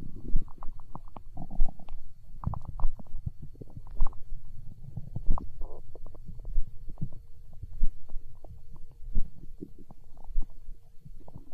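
A person's empty stomach growling from hunger, with irregular low gurgles and rumbles broken by many small pops and a brief squeal. A regular low thump comes about every second and a quarter, and a faint steady tone enters about halfway through.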